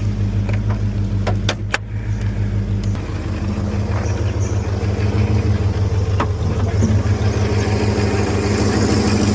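Holden 5-litre V8 idling steadily, with a few sharp clicks about one and a half seconds in.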